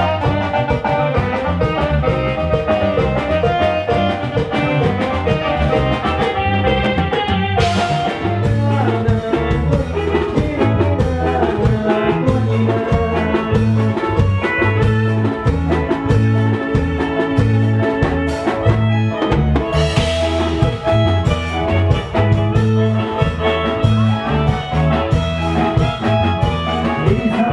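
Loud Latin dance music with a drum kit and a heavy, pulsing bass line, played over a party sound system, with two short hissing swells, about a third of the way in and again past two thirds.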